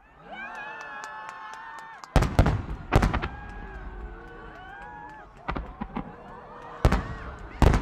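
Aerial firework shells bursting: a string of loud bangs starting about two seconds in, with more in the last few seconds, and long whistling tones from rising shells between them.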